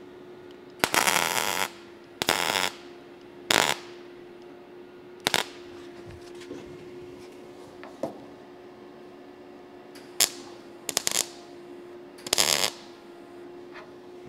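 MIG welder putting a series of tack welds along the replacement steel gutter joint on a roof: about eight short bursts of arc noise, each under a second, with a longer gap in the middle. A steady hum runs underneath.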